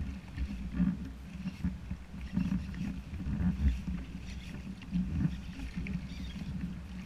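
Water sloshing and lapping against an inflatable float tube as it moves across the lake, with a low rumble that swells and eases about once a second.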